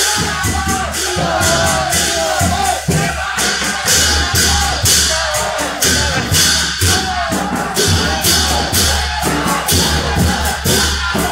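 Street procession music: a steady beat of sharp, clashing metal percussion over drumming, with a crowd singing and shouting along.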